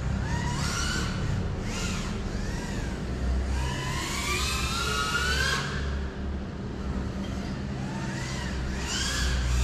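GEPRC Cinelog35 cinewhoop's brushless motors and ducted propellers whining, the pitch rising and falling with the throttle and climbing in one long sweep midway, over a steady low rumble.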